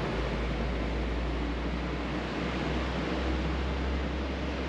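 Steady outdoor background noise: an even hiss over a low rumble, with no single event standing out.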